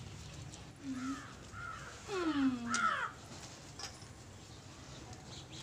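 A crow cawing three or four times in the first half: short, harsh, arched calls.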